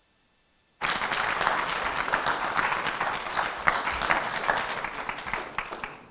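Audience applauding, starting suddenly almost a second in and fading toward the end.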